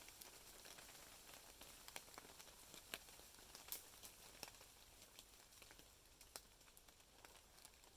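Near silence: a faint hiss with scattered, irregular small ticks and crackles.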